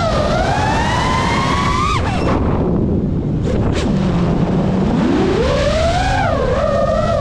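FPV freestyle quadcopter's brushless motors whining, the pitch sliding up and down with the throttle; about two seconds in the whine drops sharply to a low hum for a couple of seconds, as when the throttle is cut, then climbs back up. Wind rumbles on the onboard microphone throughout.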